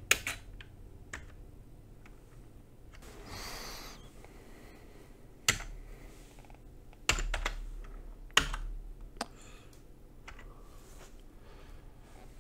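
Keys being pressed on a ZX Spectrum+ keyboard: about ten separate key clicks, unevenly spaced with long pauses between them, with a short pair of presses about seven seconds in.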